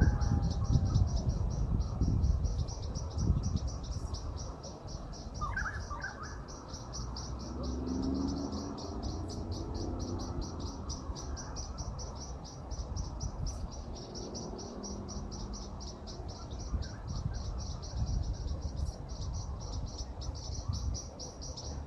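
Cricket chirping in a steady, even rhythm throughout, over a low rumble of wind or handling noise, with a brief bird chirp about six seconds in.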